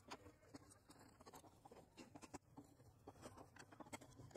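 Near silence: room tone with faint, scattered soft clicks.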